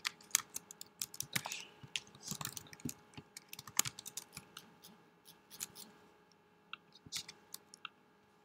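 Typing on a computer keyboard: irregular key clicks, close together over the first few seconds, then thinning out after about five seconds.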